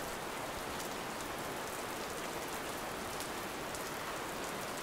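Steady rain falling, with faint scattered drop ticks.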